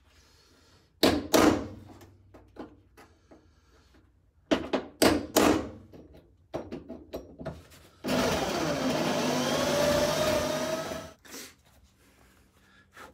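A hammer tapping a center punch into the sheet-steel floor rail of a 1980s Toyota Hilux cab: a few sharp metallic taps in two groups. About eight seconds in, an electric drill with a spot weld drill bit starts cutting into a factory spot weld and runs for about three seconds, its pitch sliding as it bites.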